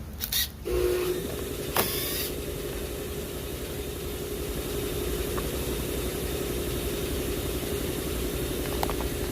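A steady motor hum starts about a second in and holds an even pitch, with a sharp click shortly after it starts.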